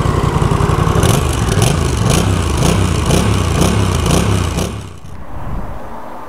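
Honda Rebel 1100's 1,084 cc parallel-twin engine idling, then revved in quick throttle blips about twice a second. The engine sound falls away sharply about five seconds in.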